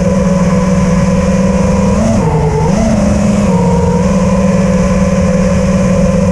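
Brushless motors of a 5-inch FPV freestyle quadcopter (T-Motor F40 Pro II motors with Azure 5140 propellers) whining steadily in low cruising flight. The pitch briefly rises, dips and recovers a couple of seconds in as the throttle shifts.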